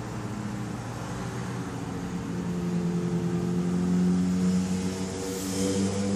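Brushless motors of a GoPro gimbal on a Blade 350 QX quadcopter humming, several steady tones that shift in pitch and grow louder partway through as the gimbal works to hold the camera steady.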